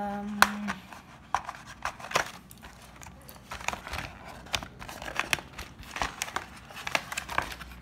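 Clear plastic blister packaging and the cardboard box of a toy set crinkling and clicking as hands handle and open them, in many small irregular crackles.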